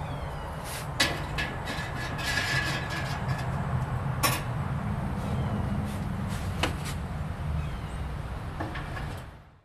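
Metal parts of a Char-Broil Big Easy oil-less fryer being handled, giving a few sharp clinks over a steady low rumble that fades out near the end.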